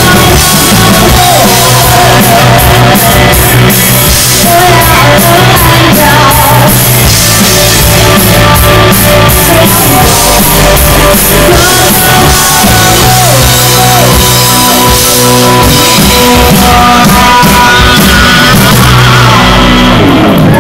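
Live rock band playing loud: a woman singing into a microphone over drums, bass guitar, electric guitar and keyboard.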